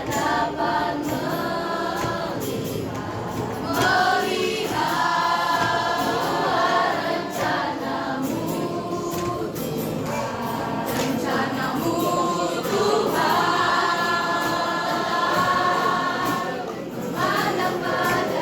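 Junior high school choir singing, in long held phrases with a short break about four seconds in and another near the end.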